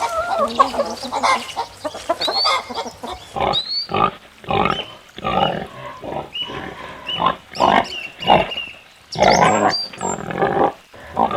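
Pig calls: a rapid series of short calls, coming thick and fast from about three and a half seconds in.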